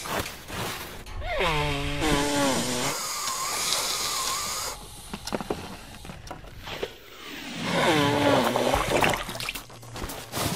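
A cartoon boy with a cold making vocal sounds: two falling moans, each about a second long, with a long buzzy honk between them.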